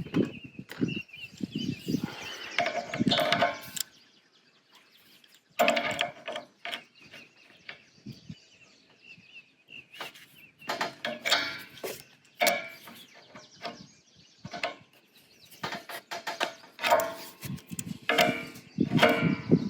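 A brass propane fitting with gas tape on its threads is being threaded onto a tank valve and tightened. There are irregular metallic clicks, scrapes and clinks, with a brief quiet pause about four seconds in.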